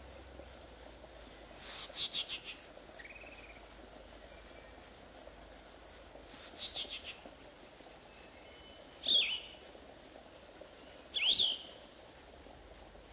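Wild birds calling over a faint outdoor background: two short bursts of quick chirps about 2 and 6.5 seconds in, a soft arched note just after the first, then two sharp single calls about 9 and 11 seconds in.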